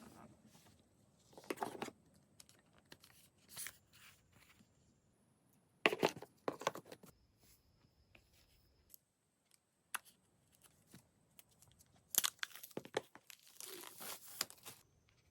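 Packaging being torn open and crinkled by hand, in three short spells of tearing and rustling with quiet pauses between.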